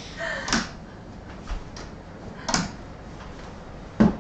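Metal forearm crutches knocking on a hardwood floor: three dull knocks about two seconds apart, the last one, near the end, the loudest.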